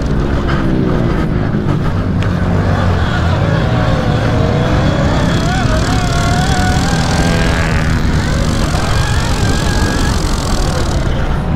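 Pit bikes racing on a dirt track: small motorbike engines revving up and down over a steady low rumble, loud throughout.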